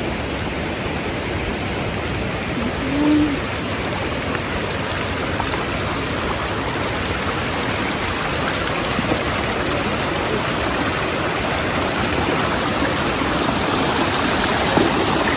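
Rushing water of a river flowing over rocks, a steady even rush that grows slightly louder toward the end.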